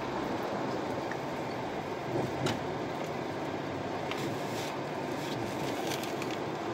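Steady road and tyre noise inside a small car's cabin, a VW Up driving along a worn, patched highway, with a few brief knocks about two and a half and four and a half seconds in.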